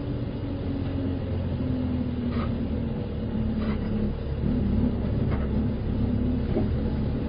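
Inside a city bus: the bus's diesel engine running with a steady low rumble and engine tones that shift slightly in pitch, with a few faint clicks.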